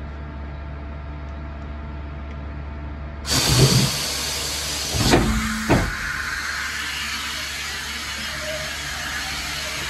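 Steady hum of a powered-up machining center. About three seconds in, a loud steady hiss sets in and runs on, with a few knocks over the next couple of seconds.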